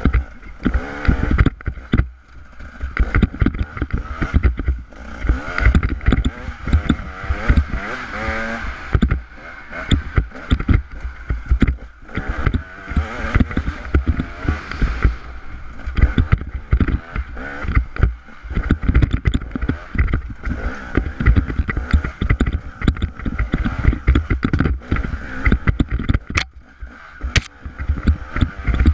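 A bike ridden fast over a rocky dirt trail: a constant jumble of knocks, jolts and rattles as it bounces over stones, under a steady rushing noise.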